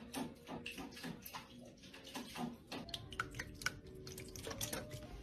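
Cats pawing at water in bowls, making repeated small splashes and sloshes, several a second and irregular.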